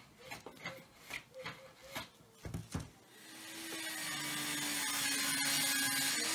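Stanley No. 8 jointer plane taking about seven quick shaving strokes along the edge of a pine board. About three seconds in, a table saw comes up to speed and rips the board, running steadily to the end.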